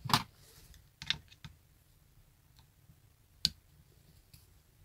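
A few short, sharp clicks of a screwdriver and wire against the brass terminal screws of an electric motor's terminal block: the loudest right at the start, two close together about a second in, and one more about three and a half seconds in.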